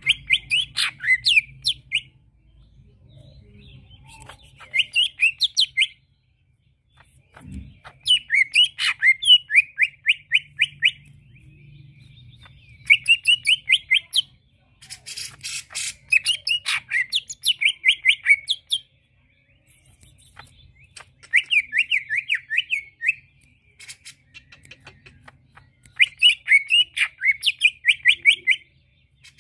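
Male green leafbird (cucak ijo) in a cage singing in full song: about seven phrases of rapid, sharp repeated chirping notes, each about two seconds long, with short pauses between.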